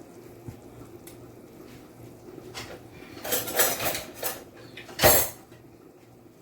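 Clatter of pots and kitchen utensils: a few light knocks, a run of clattering about three seconds in, then one sharp, loud clank about five seconds in.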